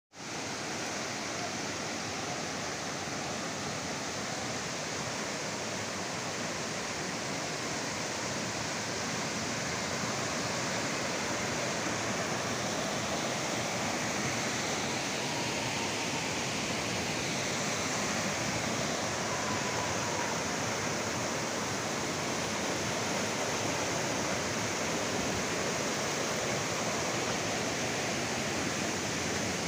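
Waterfall and rocky stream rushing steadily: an even, constant noise of falling and running water that fades in at the very start.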